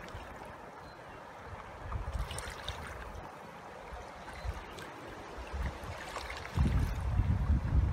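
Fast-flowing river water rushing steadily past the bank, with low wind buffeting on the microphone that swells up strongly near the end.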